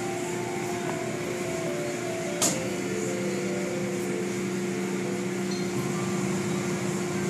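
Automatic car wash heard from inside the car: a steady hiss of water and foam spraying over the car and a steady hum from the wash machinery. One sharp knock comes about two and a half seconds in.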